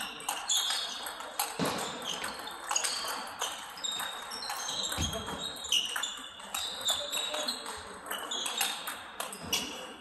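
Table tennis balls clicking off bats and tables in a hall, many short sharp ticks with a brief high ring, coming irregularly two or three a second.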